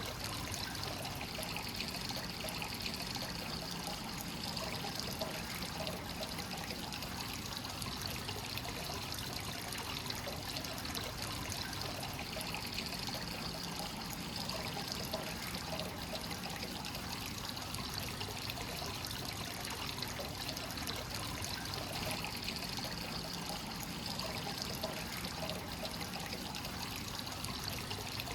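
Free-flowing hot spring water pouring steadily into a bath, a continuous trickling splash.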